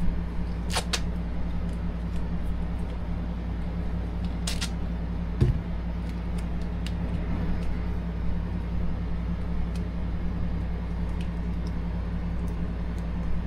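Tape being ripped off a roll in a couple of short tearing pulls, about a second in and again near four and a half seconds, with a single low thump midway, over a steady low hum in the workshop.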